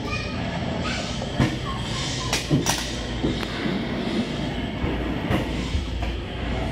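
Several short thumps and knocks, the loudest a quick cluster about two and a half seconds in and another about five seconds in, over a steady low rumble in a large indoor play hall.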